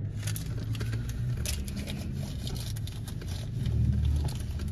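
Automatic car wash running, heard from inside the car: a steady low machinery rumble with water spray pattering on the car body. The spray starts right at the beginning, and the rumble swells near the end.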